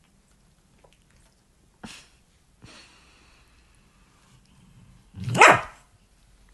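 Dog barking: one loud bark that falls in pitch, about five seconds in. It follows a short, softer sound about two seconds in.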